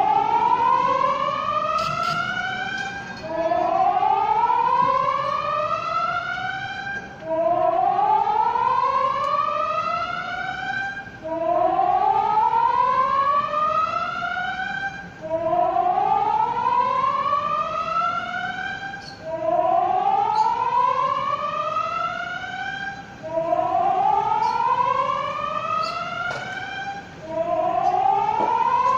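Outdoor emergency warning siren of a city public warning system, sounding a whoop pattern during a system test: a loud rising tone that climbs steadily for about four seconds, drops back abruptly and starts climbing again, over and over.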